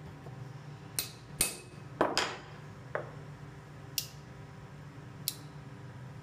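Copper hammer tapping a knife blade clamped in a bench vise, about seven light, irregular metallic strikes with a short ring. The taps nudge the blade so it sits centred in the handle.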